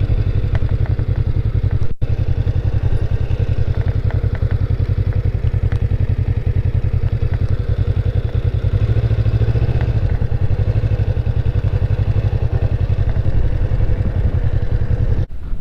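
Motorcycle engine running at low speed while riding, a steady low pulsing exhaust beat. There is a momentary break about two seconds in, and the sound cuts off abruptly just before the end.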